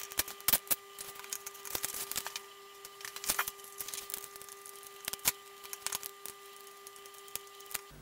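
Irregular light clicks and knocks of locking pliers, a screwdriver and the plastic housing as a dishwasher wash pump is taken apart, over a faint steady hum.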